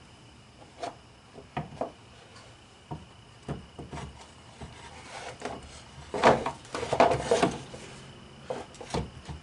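A Badlands Apex 5500 winch being worked by hand into its steel mounting bracket, its housing knocking and scraping against the metal in scattered clunks, with a louder run of clunks and scraping a little past the middle. It is a tight fit.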